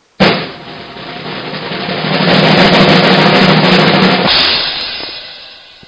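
Drum roll that starts with a sharp hit, swells to its loudest around the middle, then fades away.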